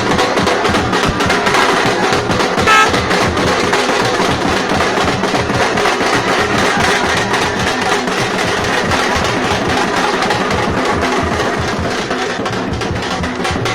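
Drums played in a fast, dense, continuous rhythm, loud throughout, with a brief high tone about three seconds in.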